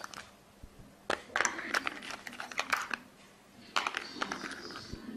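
Rustling and crinkling with small sharp clicks as hands lift a charger plug, USB cable and earphones out of a cardboard phone box, in two spells about a second and about three and a half seconds in.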